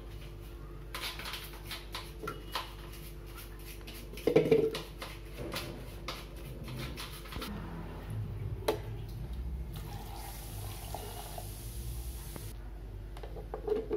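Handling sounds at a mixer-grinder's plastic jar: melon chunks dropped in with scattered light knocks and clicks, the loudest knock about four seconds in, then milk poured into the jar with a steady hiss for a couple of seconds near the end.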